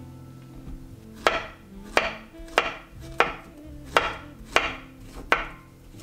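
Chef's knife slicing a banana on a wooden cutting board: about seven sharp knocks of the blade hitting the board, roughly every two thirds of a second, starting about a second in.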